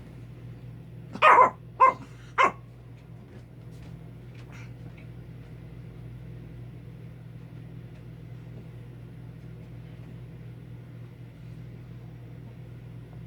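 A dog barking three times in quick succession, the first bark a little longer, at its owner lying motionless while pretending to be dead. A steady low hum runs underneath.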